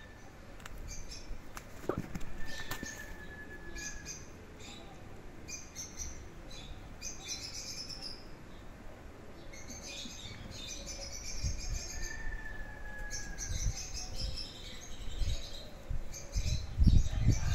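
Cats play-fighting: intermittent scuffling and rustling, with low thumps that are loudest near the end. Two thin, slightly falling high calls, each about a second and a half long, sound a couple of seconds in and again about twelve seconds in.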